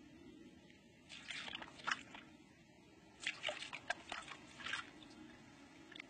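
A fox tugging at a rope gripped in its teeth on sandy ground: two bursts of crackly scraping clicks, each about a second long, the first about a second in and the second a little after three seconds, over a faint steady hum.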